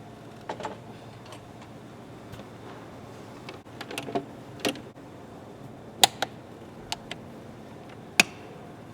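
Irregular sharp clicks and knocks of hand tools and parts being handled while refitting engine components, with a cluster about four seconds in and the loudest single knocks a little after six seconds and just after eight seconds in.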